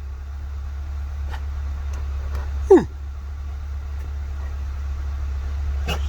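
A man's velociraptor imitation: one short screech that falls sharply in pitch, about three seconds in. Under it runs the steady low hum of an idling vehicle engine, and a faint click comes near the end.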